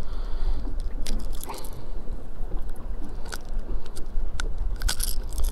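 A hard plastic lure and its treble hooks clicking a few times as they are worked out of a hybrid striped bass's mouth by hand, over a steady low rumble.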